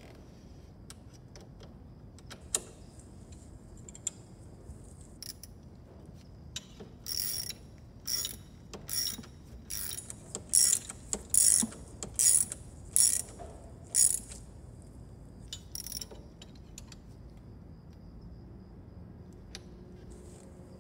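Hand ratchet wrench clicking through about ten short strokes, roughly one every three-quarters of a second, with scattered light metal clicks before and after.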